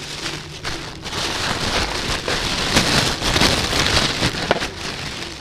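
Thin plastic bag crinkling and rustling as it is handled and opened to take an item out, a dense crackle that builds to its loudest about three to four seconds in, then eases off.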